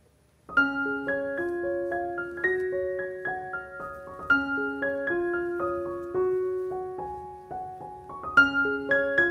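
Gentle piano background music starts about half a second in: a slow melody of struck, fading notes over simple chords, with the phrase beginning again about every four seconds.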